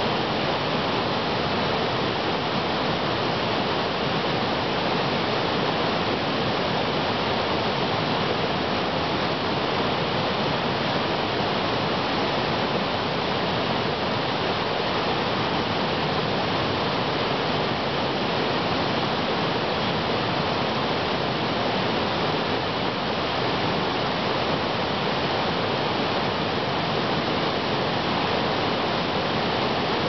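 Small waterfall: creek water cascading over stepped rock ledges, a steady, even rush of falling water.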